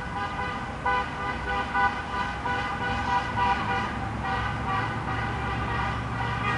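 Several car horns honking from street traffic, short toots and longer blasts overlapping one another at different pitches, over a low rumble of traffic.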